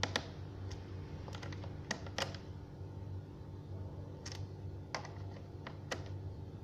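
Scattered, irregular sharp plastic clicks and taps on an Asus X453M laptop's keyboard and casing, about ten in several seconds, over a steady low hum.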